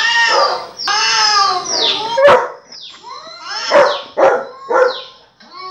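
A husky-type dog barking and yowling: two drawn-out, falling calls in the first two seconds, then a quick string of shorter, sharper barks.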